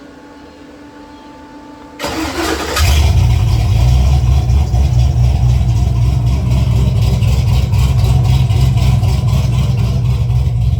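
Chevy V8 with a DOD delete cranking briefly on the starter, then catching about three seconds in and running loud and steady with a heavy low rumble. It fires up again after its camshaft position sensor connector, fouled by spilled power steering fluid, was cleaned and dried.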